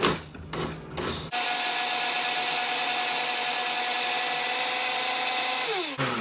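Oster countertop blender blending tomatoes, onion and cilantro: after a few knocks from the lid and controls, the motor starts abruptly about a second in and runs steadily with a high whine. Near the end it is switched off and the motor winds down with a falling pitch.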